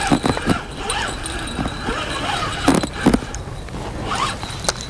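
Wind rumbling on the microphone, with a few irregular crunches and knocks, the sharpest about three seconds in and near the end.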